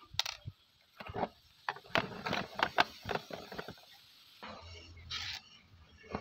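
Plastic case of a portable radio handled and turned over by hand: a quick, irregular run of clicks, taps and knocks, thickest in the middle, with a brief rub about five seconds in.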